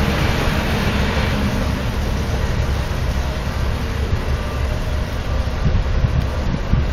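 Narrow-gauge diesel shunting locomotive running as it moves slowly away, its engine tone fading about a second and a half in, over a low rumble.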